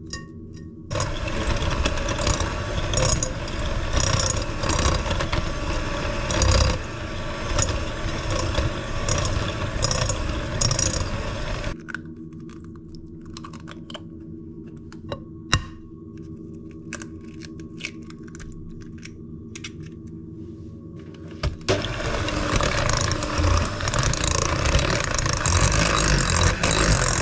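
Electric hand mixer beating cake batter of butter, sugar and egg in a glass bowl. It runs for about ten seconds, stops, and starts again for the last several seconds; in the pause there are scattered knocks and clicks.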